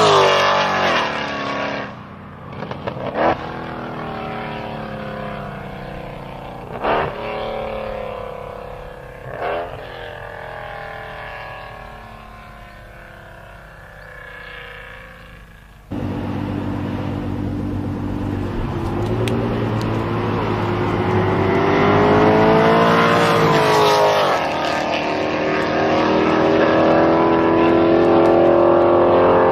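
High-performance cars drag racing at full throttle, engines running hard and loud. A sharp crack sounds at each gear change about 3, 7 and 9.5 seconds in as one run pulls away and fades. About 16 seconds in, the sound cuts suddenly to another pair of cars accelerating, their engine notes rising and falling through the gears and growing louder.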